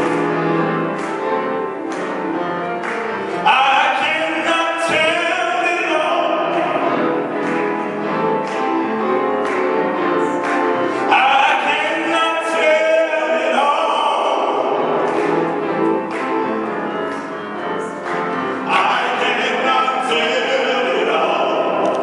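A group of voices singing a gospel-style song in harmony, over a steady beat of sharp strokes about once a second.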